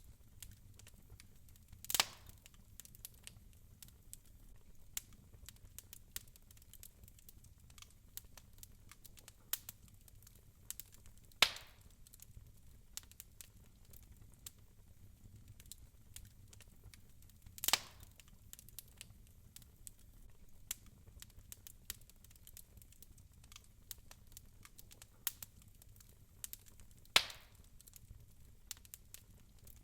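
Wood fire crackling softly in a fireplace: a low steady rumble with scattered small ticks and four sharper pops spaced several seconds apart.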